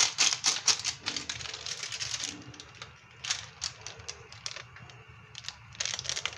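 A small seasoning packet shaken and tapped over a pot: a fast run of dry rattling ticks, about eight a second, that stops a little over two seconds in, then a few scattered ticks.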